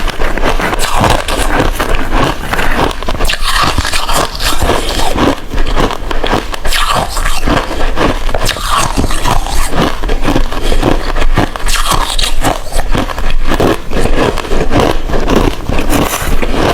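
Hard ice being bitten and chewed close to the microphone: loud, continuous crunching and crackling.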